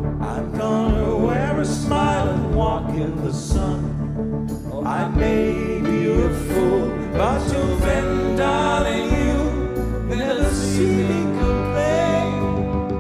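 Live band music with a man singing the lead vocal.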